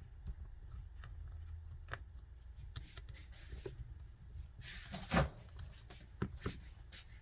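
Scattered small clicks and taps of hands and tools working on an opened laptop's internal parts, with a louder brief rustle and knock about five seconds in.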